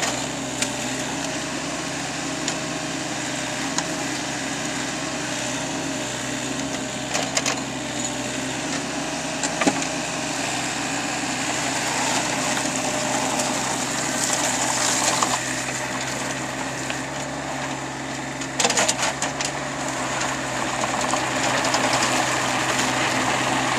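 Backhoe's diesel engine running steadily under working load, with a few sharp clanks and knocks from the machine.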